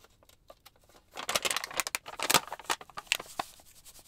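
Plastic pouch of sugar crinkling and rustling in the hands as it is opened and tipped, a dense crackling from about a second in, then a few sharp clicks.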